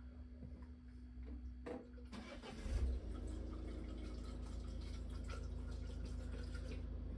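Petrol being poured from a plastic jerry can into a small plastic bottle: a couple of knocks as the can is handled, then a steady pour from about three seconds in.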